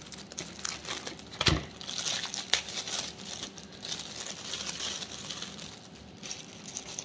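Thin clear plastic jewelry bag crinkling and rustling as it is handled and opened by hand, with a sharp knock about one and a half seconds in.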